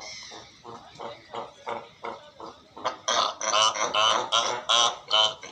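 Cape fur seals barking in a rapid run of calls, about three or four a second, growing much louder about three seconds in.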